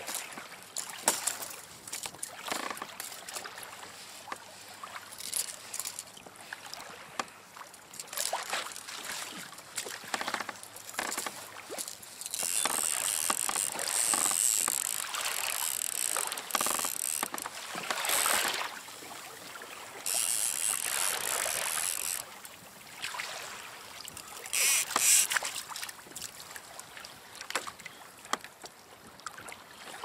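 Choppy sea water slapping and splashing against a plastic fishing kayak's hull in irregular strokes, with two longer hissing stretches in the middle.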